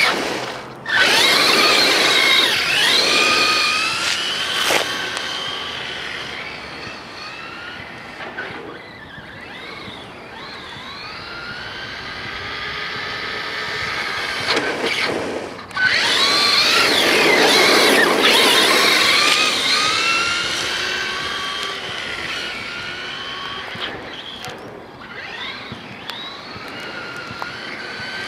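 Electric motor and drivetrain of an Axial Yeti XL radio-controlled truck whining, rising and falling in pitch as the throttle is worked. It is loudest in two spells, one near the start and one about halfway through, each coming in suddenly after a brief drop.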